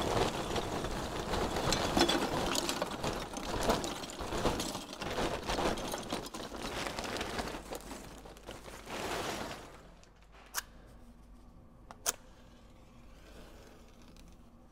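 Lump charcoal pouring from a paper bag into a ceramic kamado firebox, the pieces clattering and clinking onto the grate and against each other. It stops after about nine seconds, and after that there are just two sharp clicks.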